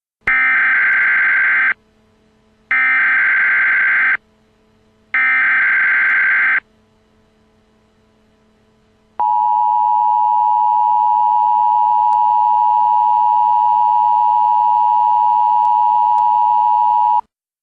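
Emergency alert broadcast tones: three short, identical bursts of warbling data tones about a second apart, then after a pause the steady Canadian Alerting Attention Signal for about eight seconds. These are the tones announcing an emergency alert message.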